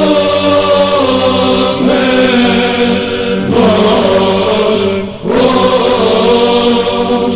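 Choir singing a slow Orthodox church chant in long held notes, the melody stepping to a new note every second or so, with a brief break about five seconds in.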